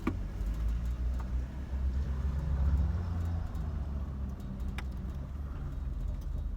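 Chevy Blazer's engine idling, a steady low rumble heard from inside the cab, swelling slightly a couple of seconds in.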